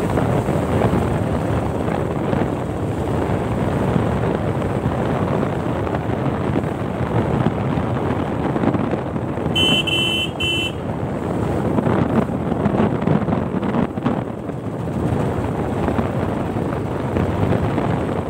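Motorcycle riding along a road: its engine running under steady wind noise on the microphone. About ten seconds in, a horn beeps twice, a long beep then a short one.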